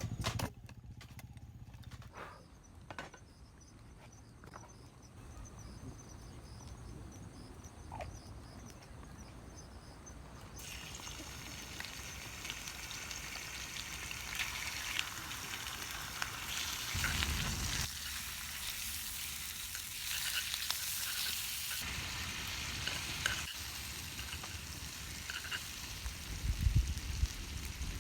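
Food sizzling and spitting in a hot skillet over a campfire, starting about a third of the way in and continuing steadily with crackles. Before that, only scattered clicks and knocks, and a low hum that stops about two seconds in.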